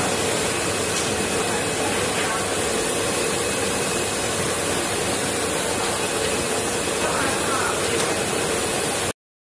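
Bank of ultrasonic cleaning tanks running: a steady, loud hiss from the agitated water with a faint steady hum under it, cutting off suddenly near the end.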